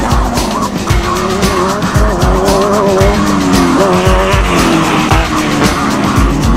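Background music with a steady, driving drum beat.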